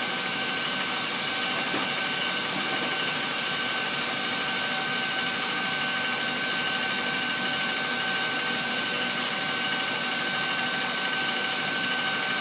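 Stand mixer with a whip attachment running steadily at speed, whipping pastry cream with heavy cream: an even whir with a constant high whine.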